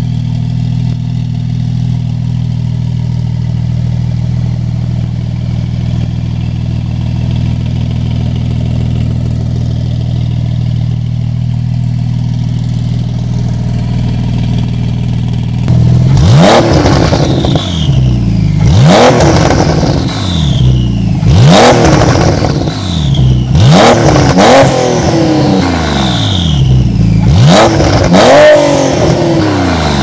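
Porsche 991.1 Turbo S twin-turbo flat-six through a Fi Exhaust valvetronic catback with quad tips and catless downpipes, idling steadily, then blipped repeatedly from about halfway: a series of short revs, each rising and falling, roughly every two seconds.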